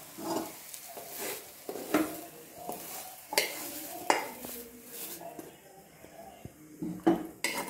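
Metal spatula scraping fried moong dal paste out of a kadai into a steel bowl: irregular scrapes and clanks of metal on metal, over a faint sizzle that fades about five seconds in.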